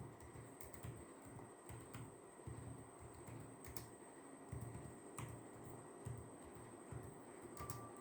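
Soft typing on a computer keyboard: faint, irregular keystrokes.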